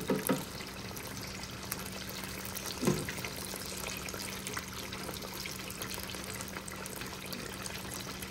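Battered bluegill fillets deep-frying in hot oil in an electric deep fryer: a steady sizzle and bubbling crackle, with a low hum underneath. There are two brief louder knocks, one at the start and one about three seconds in.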